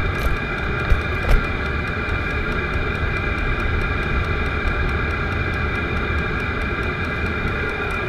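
Vevor diesel air heater running with a steady whirring fan and a faint regular ticking. Two short clicks come about a second in.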